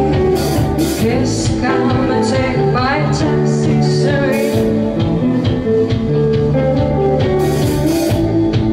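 Live rock band playing: electric guitars, bass guitar and drums, with several cymbal hits.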